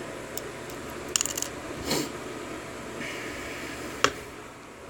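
Small metal lock parts clicking and clinking as a Corbin lock cylinder is handled with a plastic plug follower. There is a quick rattle of light clicks about a second in and one sharp click about four seconds in.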